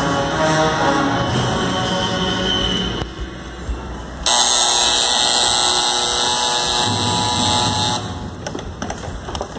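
Guatemalan procession brass band playing a funeral march. The music dips briefly about three seconds in, then the band holds a loud final chord with cymbals from about four seconds. The chord breaks off near eight seconds, leaving a fainter, scattered tail.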